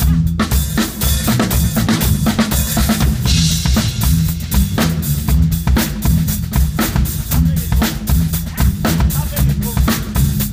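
Rock music with a busy drum kit, kick and snare hits on a steady beat, over a low bass and guitar line.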